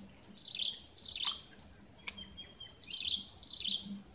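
A bird calling in short, high chirping notes, two quick pairs about two seconds apart, with a single sharp click between them.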